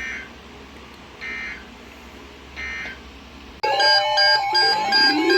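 Three short bursts of EAS SAME end-of-message data tones from a NOAA Weather Radio broadcast, each about half a second long and a little over a second apart, over faint radio hiss, marking the end of the warning. About two-thirds of the way in, loud electronic music with steady and sliding tones cuts in.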